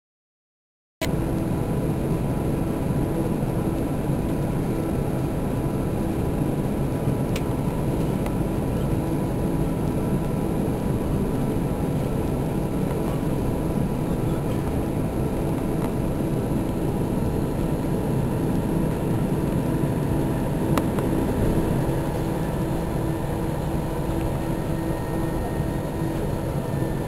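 Airbus A320 cabin noise while taxiing after landing: the engines at idle and the cabin air system make a steady, even hum with a faint constant tone. It begins about a second in after a short gap in the sound.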